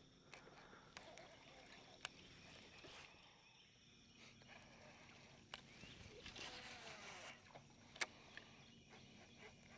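Near silence: faint outdoor ambience with two steady high-pitched tones, a brief hiss about six seconds in, and a few small clicks, the sharpest about eight seconds in.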